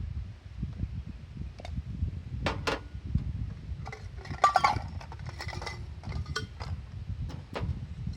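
Camp cookware and utensils clinking and knocking as they are handled, about a dozen sharp strikes, the loudest cluster about halfway through ringing briefly like metal or glass. A low, steady rumble lies underneath.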